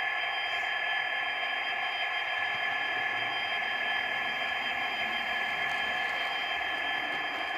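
Model railway locomotive running along the track: a steady whirring hiss with thin high tones held throughout.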